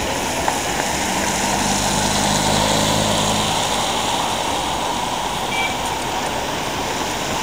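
Steady hiss of city traffic on a wet street, tyres on rain-soaked asphalt, with a vehicle engine's low hum that fades out about three and a half seconds in.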